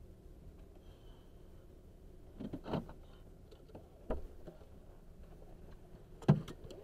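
Quiet car interior with a low steady hum, a few soft rustles and knocks of someone shifting in the seat, then a loud clunk near the end as the driver's door is opened.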